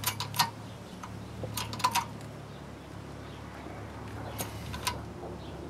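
Blue bottle hydraulic jack being pumped by its handle to press a mold, a short cluster of sharp metallic clicks with each stroke, three times, over a low steady hum.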